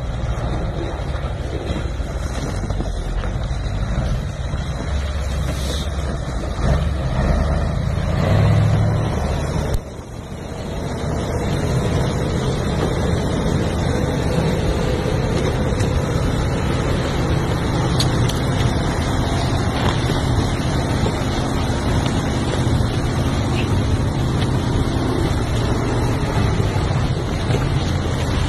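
KamAZ truck's diesel engine running under load as the truck ploughs through deep slush and snow, with slush churning around the wheels and wind buffeting the microphone. The sound drops briefly about ten seconds in.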